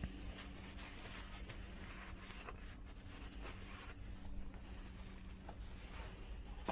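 Faint rustling and handling noise with a few soft clicks, over a steady low hum.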